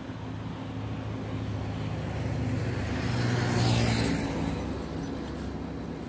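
A motor vehicle's engine hum growing louder as it approaches and passes close by. It peaks with a rush of tyre and air noise a little under four seconds in, then fades away.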